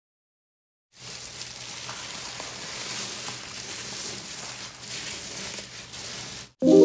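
Bubble wrap crinkling and rustling as hands handle and smooth it over a drawing tablet, starting about a second in. Music with bell-like tones starts just before the end.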